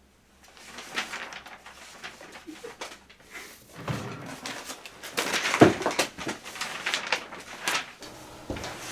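Irregular knocks, taps and thumps in a small room, growing busier after about four seconds, with the loudest thump a little past halfway.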